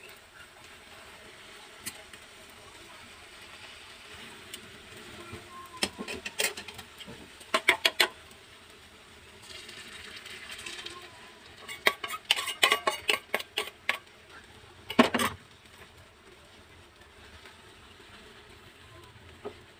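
A metal spoon and spatula clattering and scraping against a stainless-steel bowl and a frying pan in quick runs of clicks. About halfway through there is a short sizzle as egg batter is poured into the hot oiled pan.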